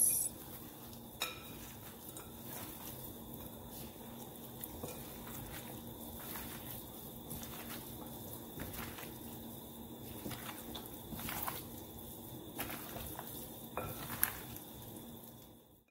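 A gloved hand mixing seasoned raw goat meat in a glass bowl: soft, wet handling noise with irregular clicks and knocks of meat and hand against the glass, over a faint steady hum.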